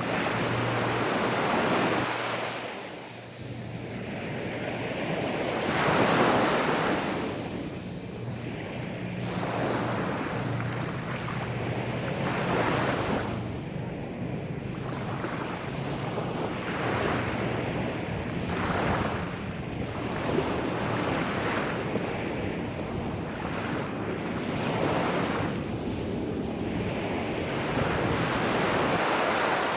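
Small sea waves washing up on a sandy beach, each one swelling and falling away every couple of seconds.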